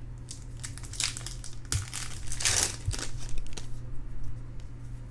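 Rustling and crinkling of trading cards and their pack wrapper being handled, in a run of short bursts, busiest about halfway through. A steady low electrical hum runs underneath.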